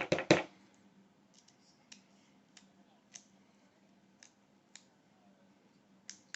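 Two or three sharp clicks at the start, then scattered faint metallic ticks: a small driver with a Torx bit working the retaining screw of a padlock being taken apart.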